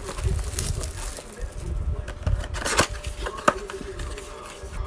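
Trading card packs and cards being handled: rustling and light scraping, with a few sharp clicks near the middle.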